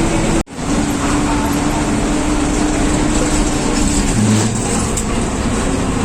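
Steady running noise of a car on the road, with a constant low hum, cutting out briefly about half a second in.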